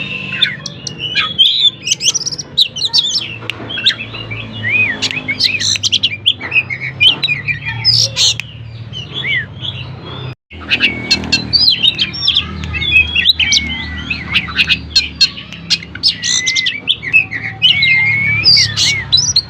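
Oriental magpie-robin (kacer) singing vigorously: a dense, fast-changing song of loud whistles, chirps and sliding notes. The song breaks off for a split second about ten seconds in.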